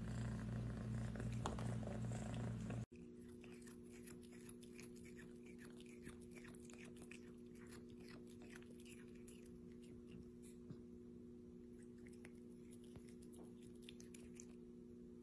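A cat chewing and tearing blades of cat grass: a faint, irregular run of small crunching clicks over a steady low hum. Louder room noise comes before it and cuts off abruptly about three seconds in.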